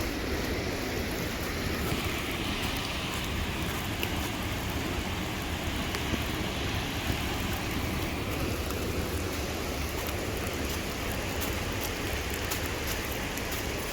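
Steady rain falling, with scattered faint drop ticks over an even hiss.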